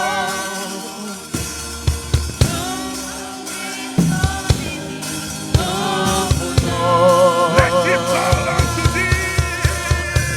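Live gospel worship music: a church choir singing a slow chorus over sustained chords, with a drum kit coming in with a few hits about a second and a half in and settling into a beat from about four seconds.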